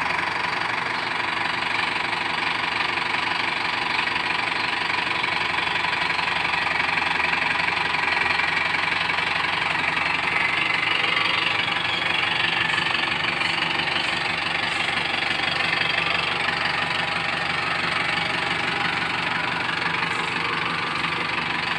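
Mahindra Arjun Novo 605 DI-i tractor's four-cylinder diesel engine idling steadily.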